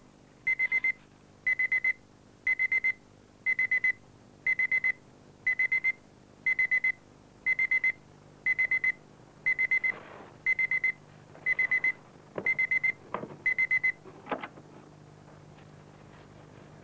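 Electronic alarm beeping in quick bursts of about four high beeps, one burst a second. A few knocks come near the end, and then the beeping stops.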